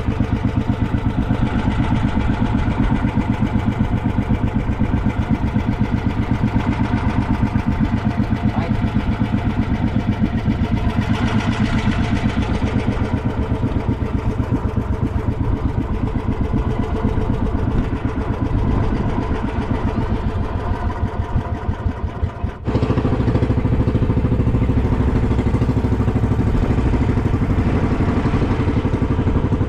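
Small fishing boat's engine running steadily under way, with an even, rapid firing pulse. About three-quarters of the way through it dips briefly, then breaks off abruptly and resumes just as steady.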